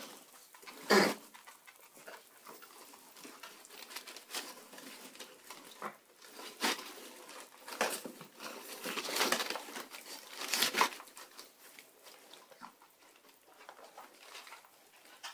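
Shiba Inu puppies playing and scuffling: short puppy yips and growls mixed with rustling paper and pattering paws, in scattered short bursts. The loudest burst comes about a second in, and a cluster follows in the second half.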